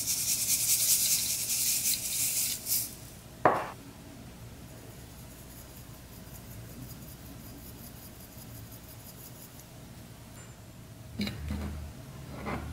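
Sequins and glitter shaken from a plastic shaker jar into a glass bowl of slime: a dense, grainy rattling hiss for about three seconds, then a single sharp knock. Near the end a metal spoon clinks lightly against the glass bowl a few times as it starts stirring the slime.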